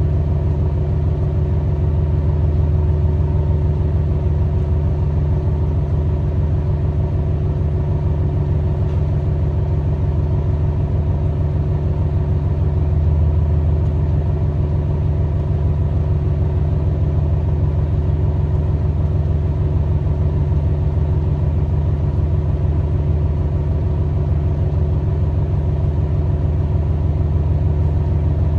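Tosa Kuroshio Railway 9640-series diesel railcar's engine idling while the car stands still, a steady low rumble with a faint even hum above it, heard from inside the passenger cabin.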